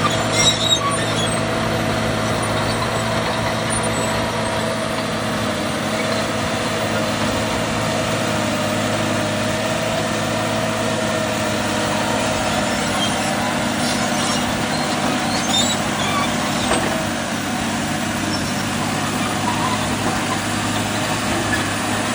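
Cat D5M XL bulldozer running steadily, its diesel engine working under load, with a steady whine that fades out about halfway through and scattered high clicks and squeaks.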